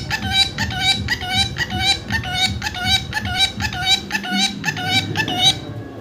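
Rose-ringed parakeet giving a fast run of short, identical repeated calls, about two a second, which stop abruptly near the end.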